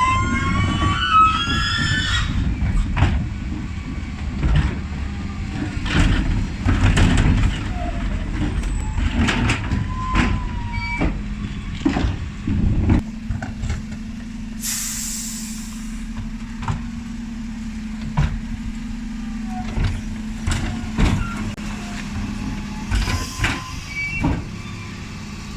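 Dennis Elite 6 bin lorry's engine running, with scattered knocks and a rising whine in the first couple of seconds. A short burst of air-brake hiss comes about 15 seconds in and another near the end.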